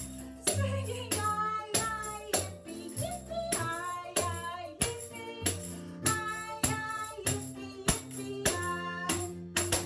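Small hand tambourine struck against the palm in time with a sing-along song, about one and a half jingling strikes a second, over singing and backing music.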